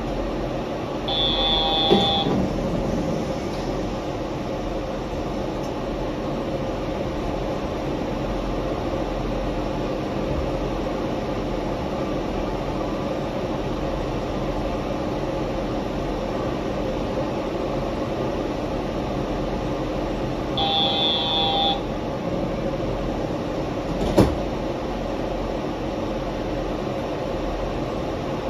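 A Yurikamome rubber-tyred automated train running, heard from inside the car: a steady running noise with an even hum. A short high beep sounds twice, about a second in and again about 21 seconds in. There are two sharp clicks, about 2 seconds in and about 24 seconds in.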